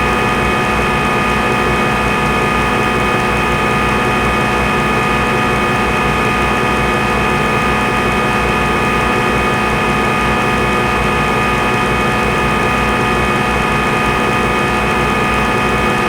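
Simulated CNC lathe running in the Swansoft GSK 928 TC simulator: a steady machine hum with several steady tones that does not change.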